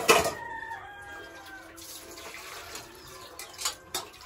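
Stainless steel bowls and plates clanking together as they are washed and stacked: one sharp clank just after the start, its metal ring fading over about a second and a half, then two lighter knocks near the end.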